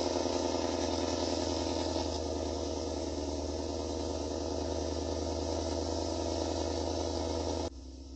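A steady mechanical hum with an even low drone, which cuts off abruptly near the end.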